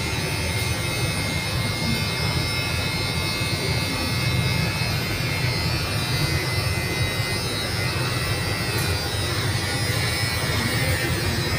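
Electric hair clippers buzzing steadily as a barber trims around a customer's ear, with music playing underneath.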